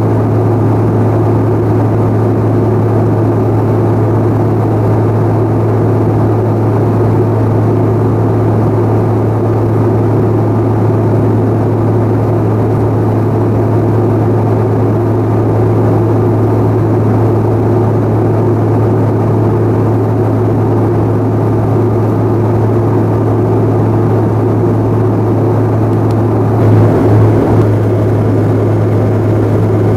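Steady cabin noise of a CRJ-700 airliner in flight: the drone of its two rear-mounted GE CF34 turbofans and the airflow over the fuselage, a strong low hum with a thin steady whine above it. A brief louder patch comes near the end.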